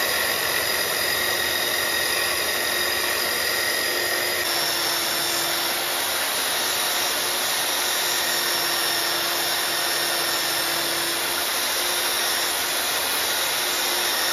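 An electric power tool running steadily with a whine over a dense grinding hiss; the whine shifts to a different pitch about four and a half seconds in.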